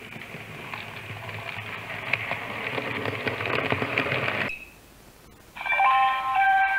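HO-scale model train rolling past close by: a hissing rumble of wheels on the rails with fine rapid clicks from the rail joints, growing louder, then cutting off abruptly about two-thirds of the way in. Near the end, steady musical tones begin.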